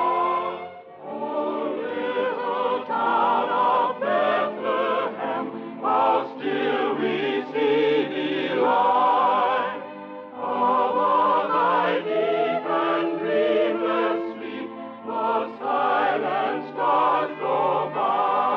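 A choir sings with vibrato in sustained phrases, a musical bridge that closes the first act of a radio drama.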